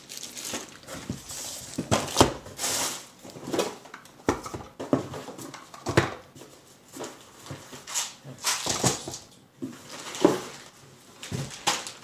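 Shipping packaging being handled and torn open: irregular crinkling, rustling and tearing with sharp knocks, loudest about two, six and ten seconds in.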